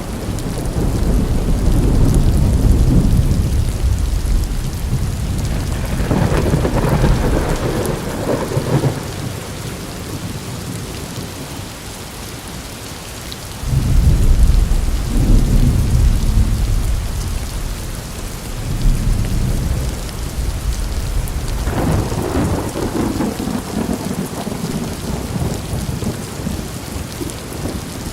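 Steady rain falling through a thunderstorm, with three long rolls of thunder: one starting about a second in, a louder one that breaks suddenly about halfway through, and another a few seconds later that fades out near the end.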